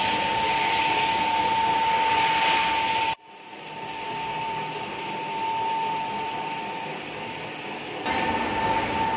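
45 kg rotary groundnut oil extraction machine (iron chekku) running as its pestle turns through a load of groundnuts: a steady whine over a rough mechanical noise. The sound cuts off abruptly about three seconds in, comes back quieter, and gets louder again just after eight seconds.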